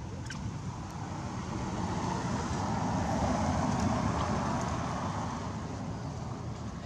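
A road vehicle driving past, its engine and tyre noise swelling to a peak about halfway through and then fading.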